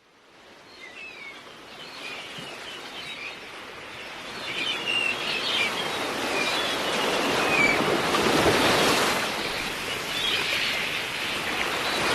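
Small birds chirping over a steady rushing noise like surf or wind, fading in from silence and growing louder.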